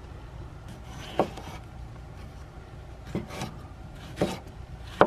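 Kitchen knife slicing a tomato into wedges over a wooden cutting board: soft scraping cuts with a few sharp knocks as the blade meets the board, the loudest about a second in.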